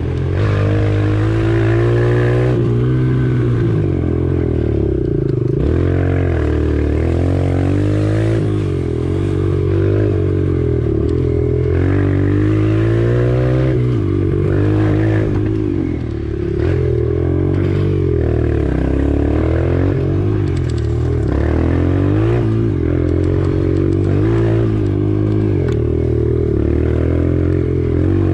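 Motorcycle engine running under constant throttle changes, its pitch rising and falling every second or two as it revs up and eases off, with occasional knocks and clatter.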